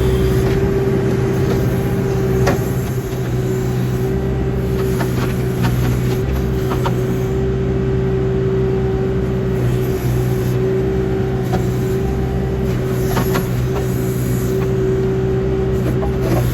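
Backhoe's diesel engine running steadily with a constant high hum over it while digging, with a few short sharp clanks of the bucket scattered through.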